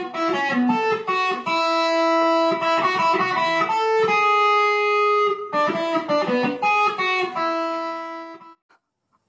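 Electric guitar playing a melody of ringing notes, which dies away near the end.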